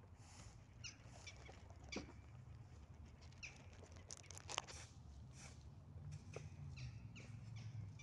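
Faint outdoor ambience: scattered soft ticks and several short, high, downward chirps over a steady low hum.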